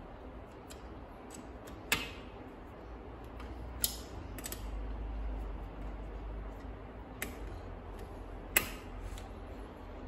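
A T-handle hex key clicking against the steel socket-head bolts of a cam-lock three-jaw lathe chuck as they are wound down gradually, drawing the chuck's back together: about four sharp metal clicks a second or two apart.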